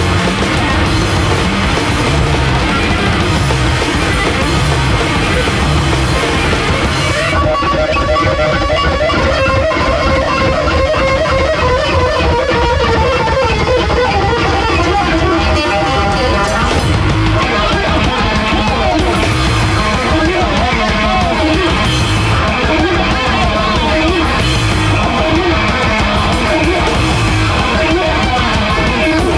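Loud noise rock from a bass-and-drums duo: fast, dense drumming under a distorted, looping bass guitar riff. About seven seconds in, the cymbal hiss thins and the bass riff comes forward.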